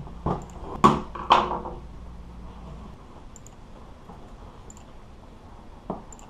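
A quick run of three sharp knocks with a short ring, then a single knock near the end: hard parts being handled and set down while a car seat is taken apart. A low steady hum underneath stops about halfway through.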